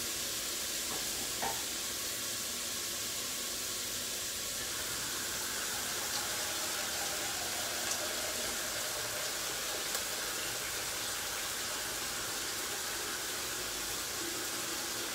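Cuttlefish and mushrooms frying in pans on a hot stove: a steady sizzling hiss, with a few faint clicks.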